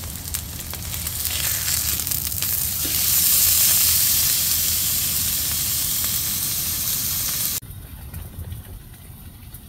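Ribeye steak sizzling as it sears in a RidgeMonkey pan on a wood stove top: a steady hiss with fine crackle, growing louder about three seconds in. It cuts off suddenly about seven and a half seconds in, leaving a much quieter low background rumble.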